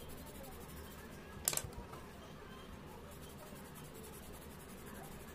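Faint scratching of colour pencils on paper as colours are swatched, with one sharp click about one and a half seconds in.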